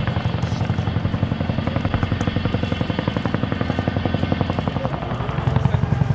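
Boeing CH-47J Chinook tandem-rotor helicopter hovering: the fast, steady beat of its two rotors over the engine noise, growing louder about five and a half seconds in.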